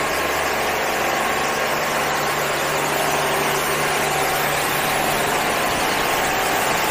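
Touchless automatic car wash machine running, with a steady hum from its pump and the even hiss of high-pressure water spray.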